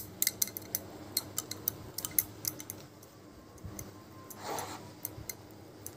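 Thick gram-flour (besan) batter being beaten by hand in a bowl: a quick run of light, irregular clicks, several a second, thinning out after about three seconds.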